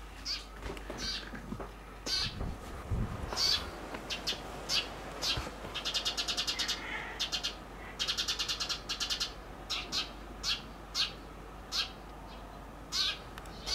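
A small bird chirping over and over in short, high calls, with two quick runs of rapid chirps about six and eight seconds in.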